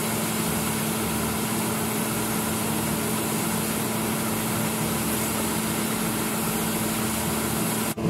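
John Deere combine harvester running steadily with a constant low hum as it unloads wheat through its auger into a grain trailer. The sound cuts off abruptly near the end.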